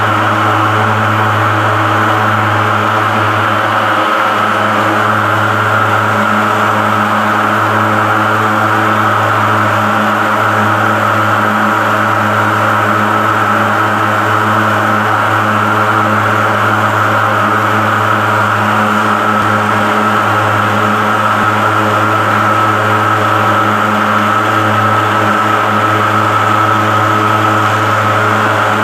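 Handheld pulse-jet thermal fogger running at a steady, loud drone: a strong low hum with a hiss above it, unchanging throughout.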